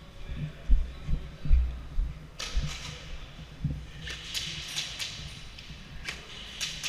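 Airsoft gunfire indoors: sharp snapping shots and BB hits come in bursts from about two and a half seconds in. Heavy low thuds of movement and gear knocking come in the first few seconds.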